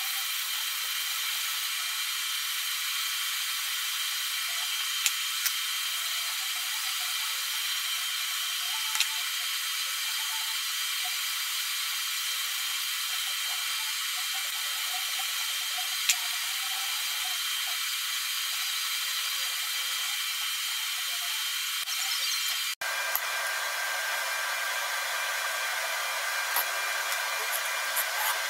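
Steady scratchy hiss of a steel hand-plane part being lapped flat on sandpaper, with a few sharp clicks. Near the end the sound shifts abruptly to a fuller hiss.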